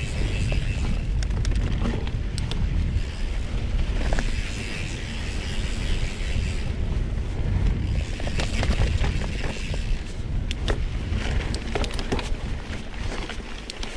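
Mountain bike ridden along a sandy dirt trail: a steady low rumble of wind and tyres, with frequent clicks and rattles from the bike as it goes over bumps.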